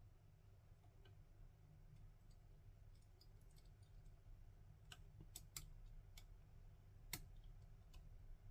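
A few faint, sharp clicks of a lock pick working the pins of an ASSA Desmo lock cylinder, most of them in the second half, over a low steady hum.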